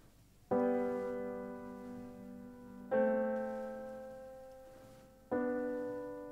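Background score music: slow piano chords, three struck about two and a half seconds apart, each left to ring and fade.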